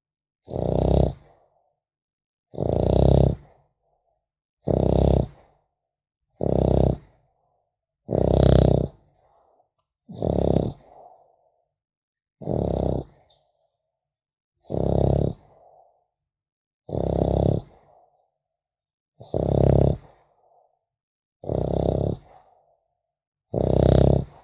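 French bulldog puppy snoring, a loud snore about every two seconds with a fainter breath trailing after most of them. This snoring is typical of the breed's short-nosed, narrow airway.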